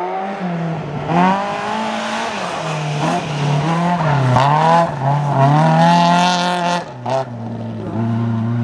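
Small rally hatchback's engine revving hard at full throttle. Its pitch climbs and drops again and again as it changes gear and lifts off, with a brief lift about seven seconds in.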